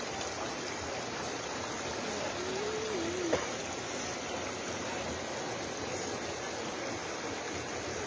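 Steady rushing of floodwater around a flooded house. About two and a half seconds in there is a brief wavering call, and a single click follows just after it.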